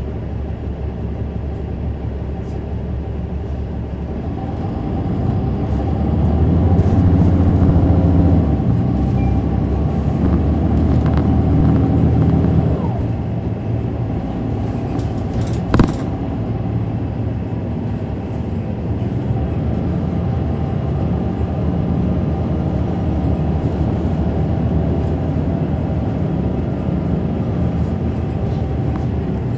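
Caterpillar C9 ACERT diesel engine of a 2003 Neoplan AN459 articulated bus, heard from on board as a steady engine hum. It grows louder from about four seconds in, eases back after about twelve seconds, then runs steadily, with one sharp knock about sixteen seconds in.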